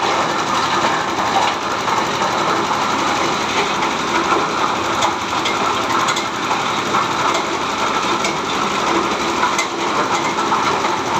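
Cocopeat (coconut husk coir) machine running under load: a small engine drives the belt-driven beater drum, making a loud, steady, fast mechanical clatter as the husks are shredded into fibre and dust.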